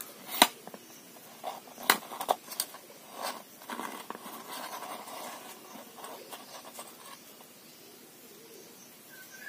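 A spoon knocking and scraping as steamed yogurt cakes (doi pitha) are prised out of their containers with its back: a few sharp knocks in the first three seconds, the loudest about half a second in, then a softer scraping around four to five seconds in.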